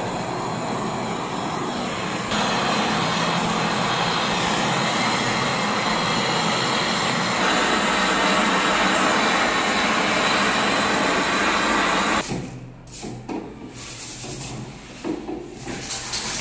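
Gas brazing torch hissing steadily as its blue flame heats the copper refrigerant pipe joints of a window air conditioner. It cuts off about twelve seconds in, leaving quieter knocks as the pipes and metal casing are handled.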